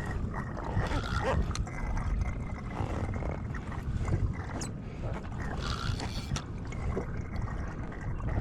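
Low, steady rumble of wind and water moving around a kayak, with a few light clicks and knocks.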